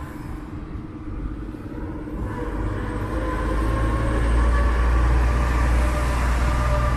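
A motor vehicle's engine running close by on the street. It is a deep drone with a steady higher whine on top, growing louder over the first few seconds and then holding.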